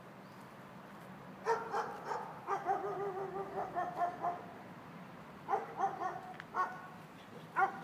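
A dog barking and yipping in play: a quick run of high-pitched barks starting about a second and a half in, some drawn out, then a second run a few seconds later and one last bark near the end.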